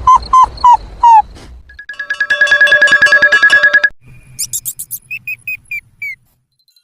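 A string of electronic sound effects: about five short squeaky chirps that dip in pitch, then a rapidly pulsing, ringtone-like buzz for about two seconds, then a run of high chirps.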